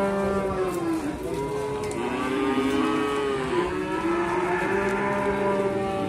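Cattle mooing: several long, wavering calls overlapping one another.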